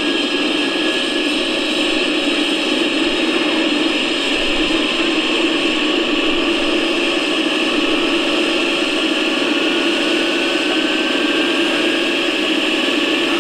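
Turbine sound from a Benedini sound module in an electric RC scale Aerospatiale SA-315B Lama helicopter, a loud, steady hiss and whine from the model on the ground with its rotors turning. A faint whine climbs slowly in pitch, like a turbine spooling up for take-off.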